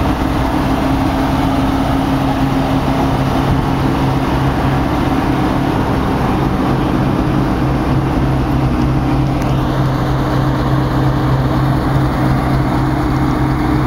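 Diesel locomotive engine idling with a steady low hum.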